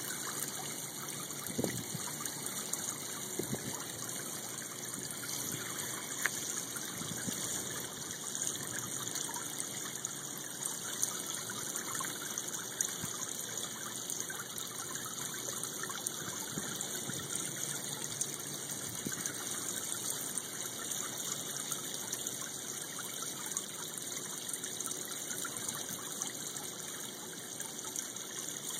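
Steady running, trickling water in a koi pond.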